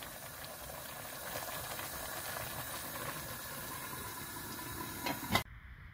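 Covered aluminium pot of rice cooking in water on a gas stove, with a steady hiss of steam. A couple of short knocks sound about five seconds in, then the hiss cuts off suddenly.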